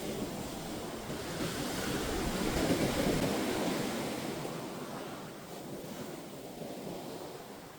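Ocean surf: a wave breaking and washing up the beach, swelling to its loudest about three seconds in and then fading.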